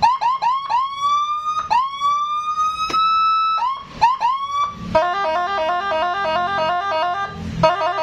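Aftermarket electronic siren horn on a Honda PCX scooter, tested on its switch box. It plays repeated rising whoops, some short and some longer, then switches about five seconds in to a fast, stepped warble of alternating tones. It is loud.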